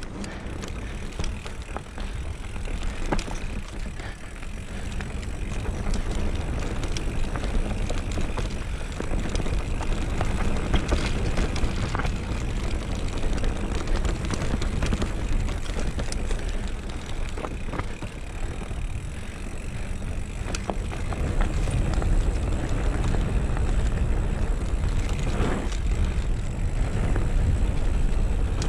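Mountain bike riding fast down a dirt forest singletrack, heard from a camera on the rider: a steady low rumble of tyres on the trail and wind on the microphone, broken by scattered sharp knocks and rattles from the bike over bumps. It gets a little louder in the last several seconds as the speed picks up.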